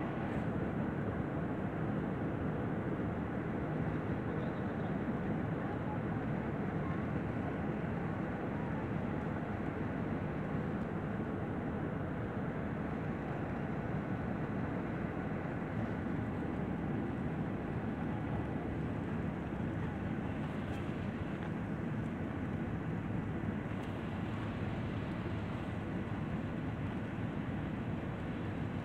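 Steady cabin noise of a passenger jet airliner: engine and airflow noise heard from inside the cabin, even throughout.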